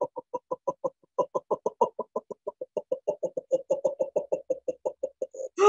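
A woman voicing rapid, evenly spaced staccato laughter syllables, about seven a second, on one long breath out, with a short break about a second in: a laughter yoga 'ho-ho ha-ha' exercise of pushing the air out of the lungs.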